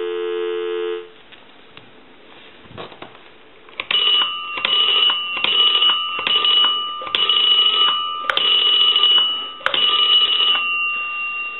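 Telephone dial tone, a steady two-note hum, cuts off about a second in. After a short quiet stretch, an Automatic Electric Space Saver 83's rotary dial is turned and spins back again and again, several digits in a row of differing lengths with short pauses between them, over a steady high tone.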